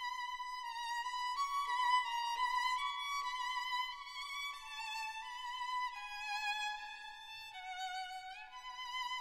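Background music: a slow solo violin melody with vibrato, moving from note to note with an occasional slide.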